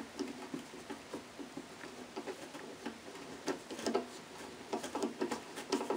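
Small screw being turned by hand with a screwdriver into wood to start a pilot hole: a quiet, irregular run of small ticks and creaks as the thread bites, busier about two thirds of the way through.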